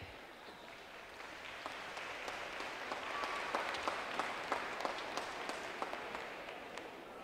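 Audience applauding in a large gym, with scattered individual claps over a general wash of clapping. It swells to its fullest mid-way and then thins out.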